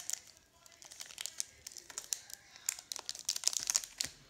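Plastic wrapping crinkling in short bursts of crackles, busiest about three seconds in, as hands handle a wrapped pack of Pokémon card sleeves from an Elite Trainer Box.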